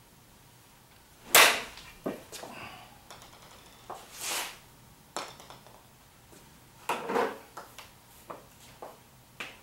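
Golf club striking a ball off a hitting mat, one sharp crack about a second in, followed by a series of lighter clicks and knocks, with another fairly strong knock around two-thirds of the way through.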